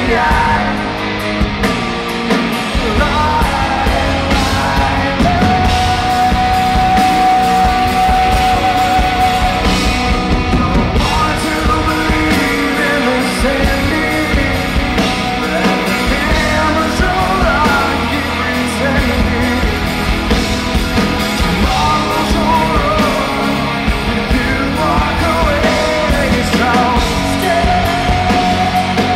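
Live rock band playing: electric guitars, bass guitar and drum kit, with a male singer's voice over them and a long held note in the middle.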